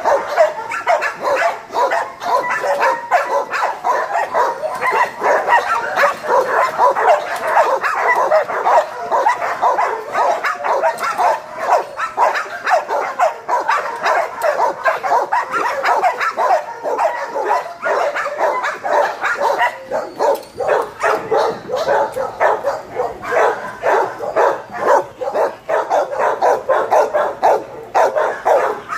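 Dogs barking without pause in shelter kennels, many barks packed closely together: the frantic barking of dogs confined to kennel runs.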